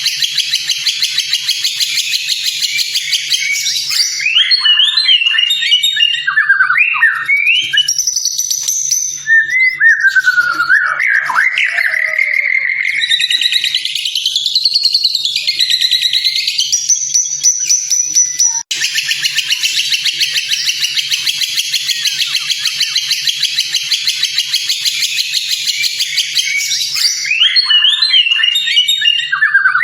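White-rumped shama (murai batu) song: a fast, high chattering trill, then a run of varied whistled phrases sliding up and down, then the dense trill again, with one abrupt break about two-thirds of the way in. A faint low hum runs underneath.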